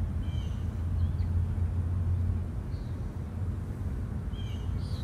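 Outdoor background: a steady low rumble with a few faint, short high chirps scattered through it.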